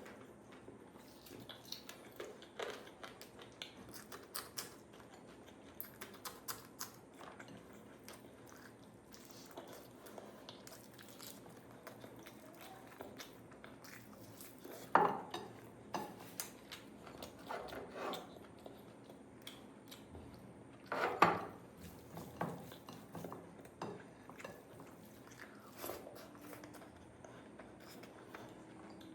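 Close-up eating sounds: a person chewing and biting food, with scattered small clicks and clinks against a plate and two louder knocks, about halfway through and about two-thirds of the way in.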